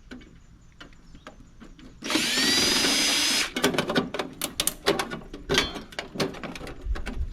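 Power drill backing a screw out of a PTAC unit's sheet-metal casing: one run of about a second and a half with a whine that rises as it spins up, then a string of sharp metal clicks and knocks as the screws and panel are handled.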